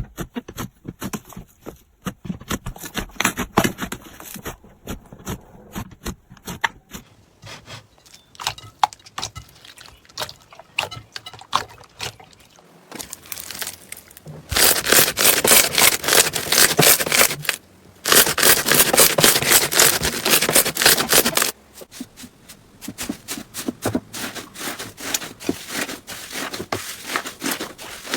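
Slime being pressed, stretched and poked, with quick popping and crackling clicks. About halfway through the crackling turns loud and dense for several seconds, with one short break, then drops back to scattered clicks.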